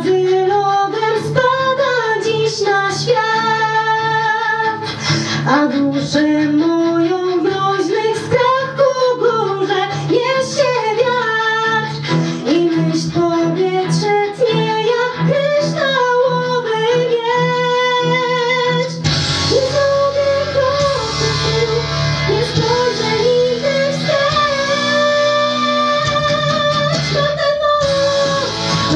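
A woman singing solo into a microphone over instrumental accompaniment. About two-thirds of the way in the accompaniment fills out, and she holds long notes near the end.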